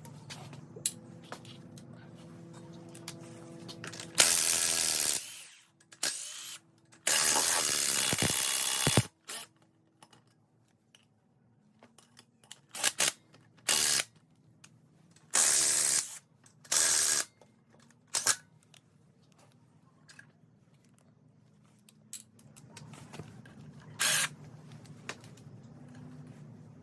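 A power tool run in short bursts, about six of them lasting half a second to two seconds each, with small clicks of tool handling between.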